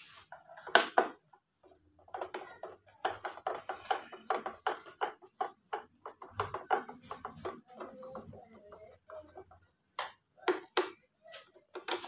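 Screwdriver working the bolts out of a plastic juicer base: a run of quick clicks and scrapes of the blade turning in the screw heads. There is a loud click about a second in, a dense run of clicks, then a few loud clicks near the end.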